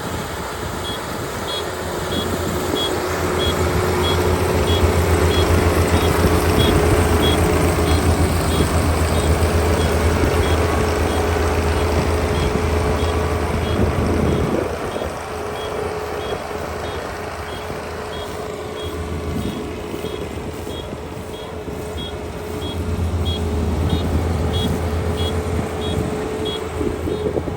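Kubota ER572 combine harvester's 72-horsepower diesel engine running steadily, swelling in level for several seconds then easing and swelling again, with a regular high electronic beep repeating a little under twice a second throughout.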